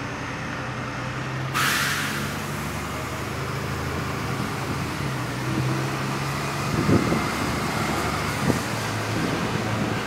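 Open-top sightseeing bus driving through town streets, its engine running with a steady low hum under road and traffic noise. A sudden hiss starts about a second and a half in and carries on, and there are two short low thumps later.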